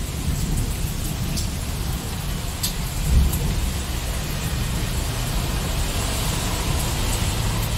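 Steady rain with a low rumble of thunder that swells about three seconds in. Near the end a rushing hiss grows louder.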